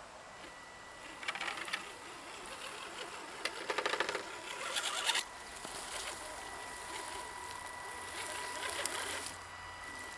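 Axial SCX10 Dingo RC crawler's electric motor and drivetrain running with a thin steady whine as it crawls through grass and brush, the whine stronger in the second half. Several short bursts of rustling and crackling come as the truck pushes through the vegetation.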